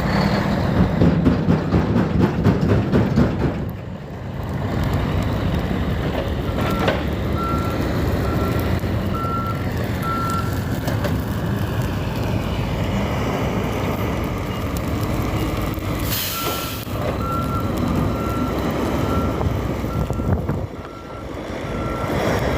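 Diesel engines of snow-removal trucks and equipment running, with a back-up alarm beeping in a steady string of single-pitch beeps about a quarter of the way in and again through the last third. A short hiss of released air comes just before the second run of beeps.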